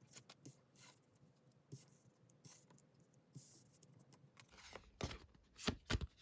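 Tarot cards handled on a table: several soft sliding swishes, then a few louder sharp taps near the end.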